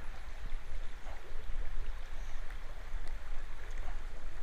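Steady rush of a flowing creek, with a low, uneven rumble on the microphone and a few faint ticks.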